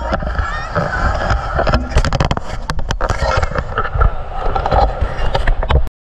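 Wind buffeting the microphone and road noise from riding in the open back of a moving vehicle, a heavy low rumble with scattered knocks and faint voices; it cuts off suddenly near the end.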